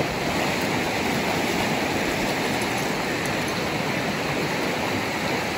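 Steady rush of a shallow river's flowing water.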